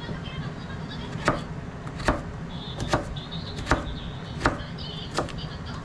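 Kitchen knife chopping a potato on a plastic cutting board, dicing it into cubes: six sharp knife strikes on the board, about one every 0.8 s.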